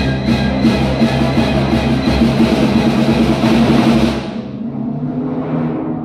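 Orchestra playing the ballet score loudly and densely, then breaking off sharply about four seconds in, leaving a quieter held chord.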